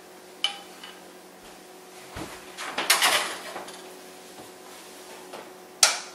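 A small saucepan and spoon clinking, then a cluster of clatter about three seconds in as the pan is set down on the stovetop, with a sharp click near the end.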